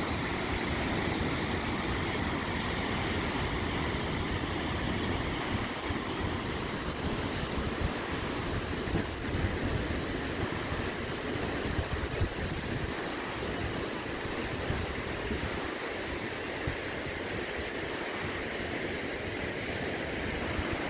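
Foroglio waterfall plunging onto rocks: a steady, even rush of falling water and spray.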